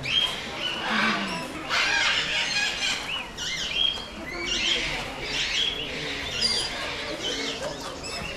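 Many aviary birds chirping and squawking together: short, overlapping calls that rise and fall in pitch.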